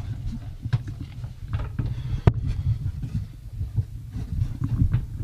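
Knocks, scuffs and clicks of someone climbing down a wooden ladder, hands and feet striking the rails and rungs, the sharpest knock a little past the middle, over a steady low rumble.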